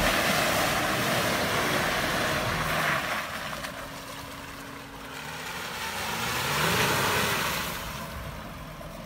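Volkswagen Amarok's V6 diesel engine revving up and down as the pickup slides and spins its wheels in mud, with the rush of the tyres churning. Loud for the first three seconds, dropping away, then surging again a few seconds later.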